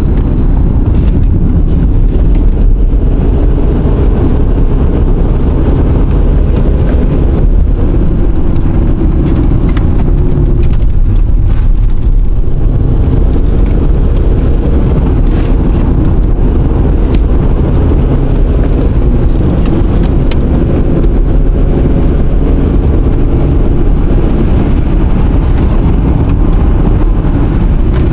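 Car interior noise while driving: a steady low rumble of engine and tyres on the road, loud and unbroken.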